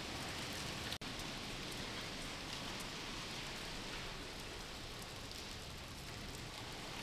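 Steady hiss of background noise with faint scattered ticks, broken by a sudden instant of silence about a second in.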